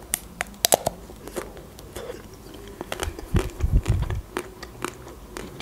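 Biting into a chocolate-coated Milka ice cream bar and chewing close to the microphone: scattered sharp crackles as the chocolate shell breaks, thickest in the first two seconds, then a few low thumps a little past three seconds in.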